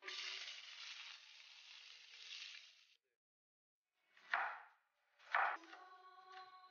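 Diced vegetables sizzling as they land in the hot pan of an electric hotpot, for about three seconds. Then two knife chops on a wooden chopping board about a second apart, the second followed by a faint ringing tone.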